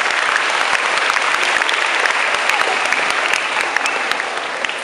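Audience applauding, a dense patter of many hands clapping that fades near the end.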